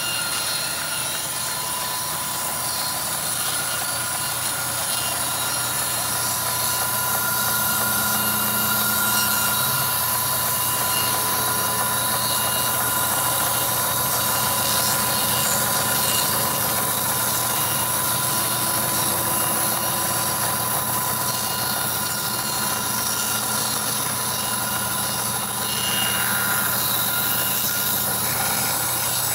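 Band sawmill running and sawing a mahogany log lengthwise, a loud, steady mechanical noise with constant high-pitched whining tones.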